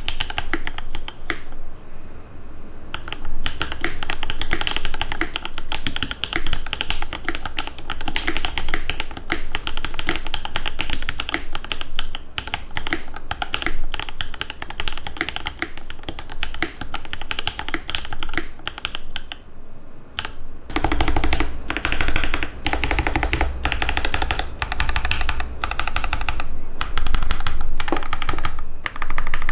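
Fast typing on a TX-HJ75 custom mechanical keyboard with lubed Alpaca linear switches and RAMA PBT keycaps, in an aluminium-top, thick acrylic-bottom case: a steady stream of keystrokes. There is a short pause about twenty seconds in, after which the typing comes back deeper and fuller.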